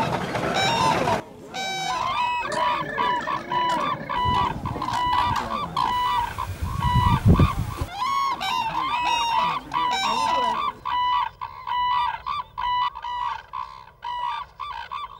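A flock of red-crowned cranes calling, many overlapping loud calls repeated over and over. A vehicle engine runs under the calls for about the first second, and a low rumble comes in between about four and eight seconds in.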